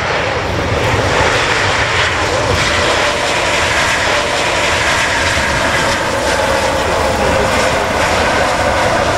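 Airbus Beluga XL's twin Rolls-Royce Trent 700 turbofans running loud and steady as the aircraft rolls out along the runway after landing, a continuous jet rush with a whining tone over it.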